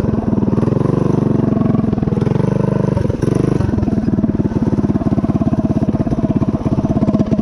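Predator 212cc single-cylinder four-stroke engine on a DoodleBug DB30 mini bike, Stage 1 with the governor removed, running under throttle while riding. The revs climb over the first two seconds, drop briefly about three seconds in, then hold steady.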